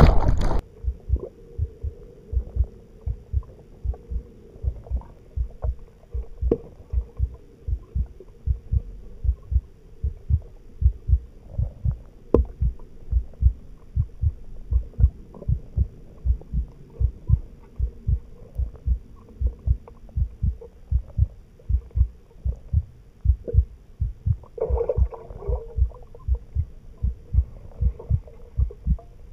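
Underwater sound in a swimming pool: a steady hum with a continuous train of low, muffled thumps about two to three a second. A short burst of bubbling about 25 seconds in.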